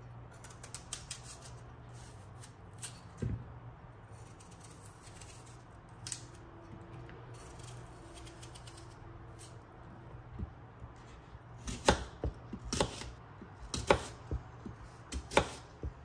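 Kitchen knife cutting an apple on a wooden cutting board: small crisp clicks as the blade cuts through, then several sharper knocks of the blade on the board in the last few seconds, over a low steady hum.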